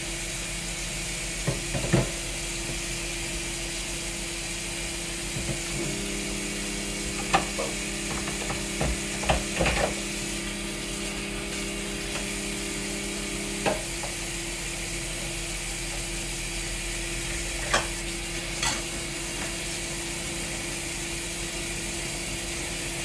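Dishes being washed by hand: scattered clinks and clatters of dishware over a steady hiss and low hum. A louder hum comes in about six seconds in and cuts off about eight seconds later.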